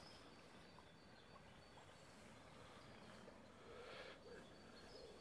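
Near silence: faint outdoor ambience by a river, with a few faint bird chirps.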